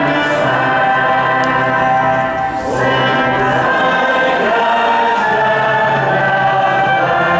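Choir singing in sustained chords, the chord changing about three seconds in and again about five seconds in.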